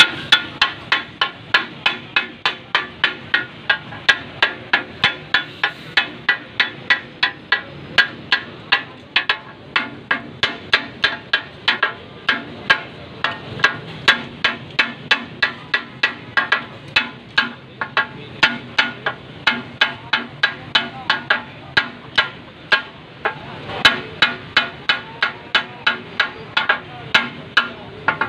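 Two flat steel spatulas striking a large round iron tawa griddle in a fast, steady clatter, about three strikes a second. This is the kata-kat cook chopping and tossing meat pieces on the hot griddle, the rhythmic clack that gives the dish its name.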